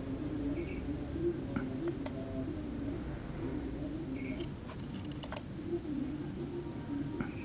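Small birds chirping over and over, with a dove cooing underneath, and a few soft clicks.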